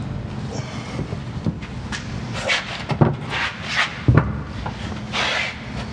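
Workshop handling noises: a series of separate knocks and clunks of suspension parts, with several short scraping rubs, as polyurethane bushings and strut parts are fitted by hand. A steady low hum runs underneath.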